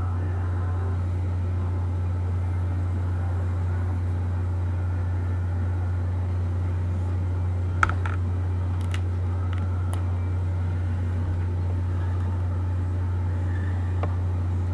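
A steady low hum, with a single sharp click about eight seconds in and a few faint ticks after it.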